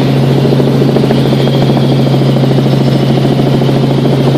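Aircraft engine and propeller running steadily, heard from on board: a loud, even drone over a constant low hum, with no change in pitch.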